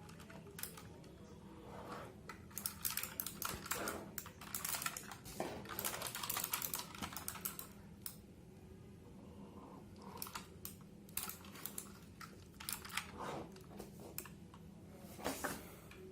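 Keys being typed on an A4Tech Bloody B760 mechanical gaming keyboard: a quick run of clicky keystrokes, a short pause, then a second, more scattered run of key presses.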